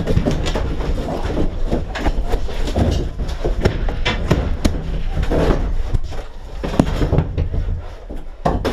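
Irregular knocks and thuds with rustling over a steady low rumble: movement noise from someone walking quickly through a building with a body-worn camera.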